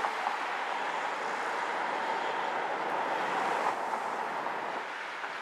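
Detroit QLine battery-electric streetcar running along its track, a steady rolling noise with a faint steady hum in it that eases off about four seconds in.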